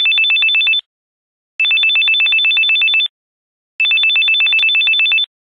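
Telephone ringing with an electronic trill: two high tones warble rapidly back and forth in rings of about a second and a half with short pauses between, three rings in all.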